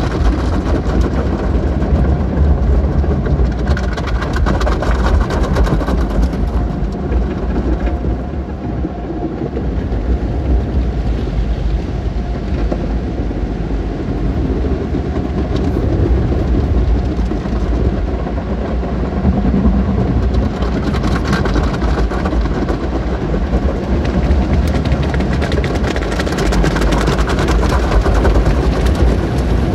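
Automatic car wash working over a car, heard from inside the cabin: a steady, loud low rumble with water and coloured foam spraying and spattering on the windshield.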